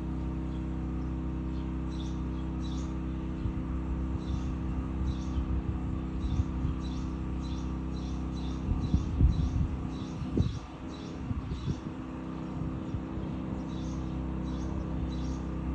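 Small birds chirping over and over in short, high calls, over a steady low mechanical hum. A few low knocks and rumbles come about nine to eleven seconds in.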